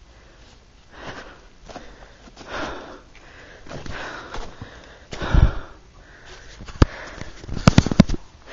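Irregular close-up sniffing breaths and short rustles, about one a second, from a person moving over leaf-covered rocky ground, with a louder thud about five seconds in and a few sharp knocks near the end.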